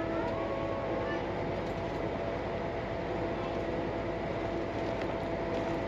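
Interior of a moving bus: a steady rumble of engine and road noise with a constant hum running through it.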